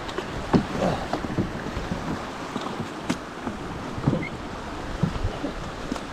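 Canoe paddling: irregular paddle strokes and short knocks against the hull over a steady rushing hiss.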